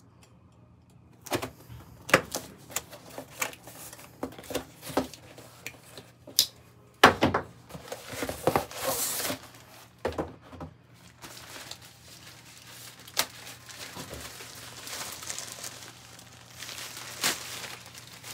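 Unboxing handling noise: cardboard, foam and plastic packaging rustling and crinkling with scattered knocks and taps as a foam speaker grille is unpacked, the loudest a sharp knock about seven seconds in.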